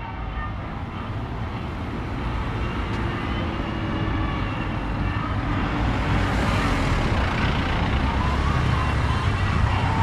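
Road traffic passing close by: engines of trucks and three-wheeled auto-rickshaws running, with tyre noise, growing steadily louder as vehicles come past.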